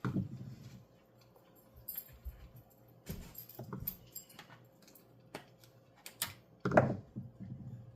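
Scattered clicks and clinks of small metal tools and parts being handled on an RC buggy, as its motor and gear mesh are readjusted. There is a dull knock at the start and another, the loudest, near seven seconds in.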